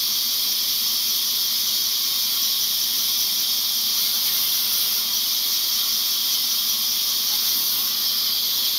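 Large vertical band saw running and cutting through a log, a steady high-pitched hiss that does not change.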